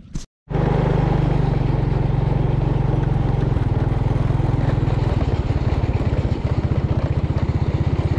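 Motorcycle engine running while the bike is ridden, cutting in suddenly about half a second in, with a pulsing low note that changes about three and a half and again about five seconds in.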